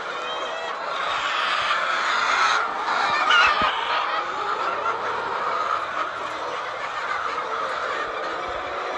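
Many laying hens clucking at once, a steady overlapping chatter of a whole flock, with a louder squawk about three seconds in.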